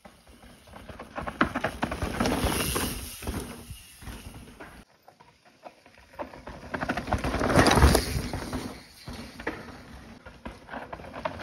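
Mountain bike coming down a dry dirt trail and passing close by: tyres crunching and scrabbling over loose dirt, with rattling clicks from the bike. It is loudest about eight seconds in, as the bike goes past.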